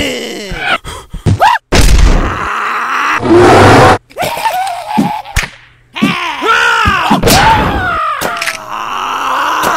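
Cartoon fight sound effects: animated characters' strained cries and groans sliding up and down in pitch, broken by several hard hits and thuds.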